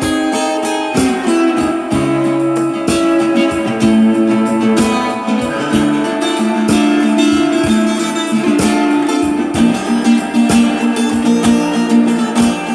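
Acoustic guitar music: a steady stream of plucked notes over held, ringing chords.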